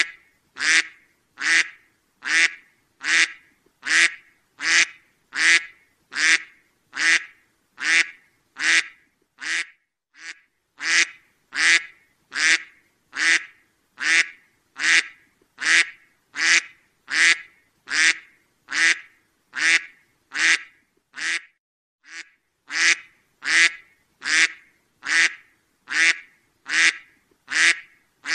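Duck quacking in a steady, evenly spaced series of short quacks, about four every three seconds, with one brief pause about three-quarters of the way through.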